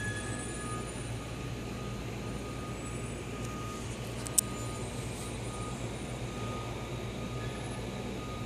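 A baby's hiccup: one short, sharp click about halfway through, over a steady low rumble and hum.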